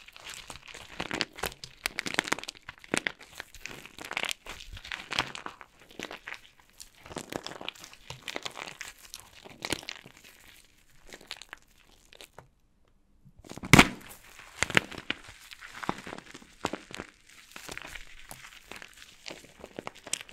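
Dry soap packed with starch crunching and crackling as it is broken apart, in many short crumbling strokes. A brief pause comes about twelve seconds in, followed by one sharp, loud crack and more crackling.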